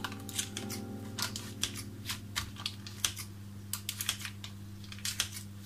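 Kitchen scissors snipping repeatedly through raw puff pastry and parchment paper: a dozen or so short, irregular clicks of the blades, over a steady low hum.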